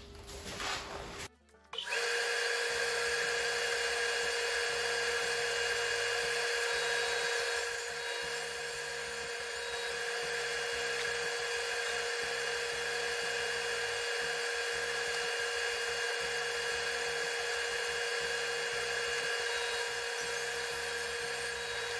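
Table saw running steadily with a constant whine, crosscutting the ends of a glued-up hardwood panel; the sound eases slightly about eight seconds in. Background music plays underneath.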